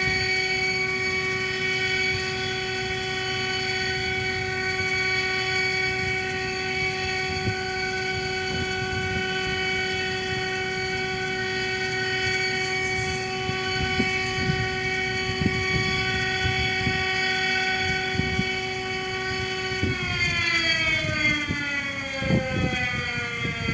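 Model 3 civil defense siren sounding its low tone, a steady held pitch. About twenty seconds in it begins winding down, the pitch falling steadily.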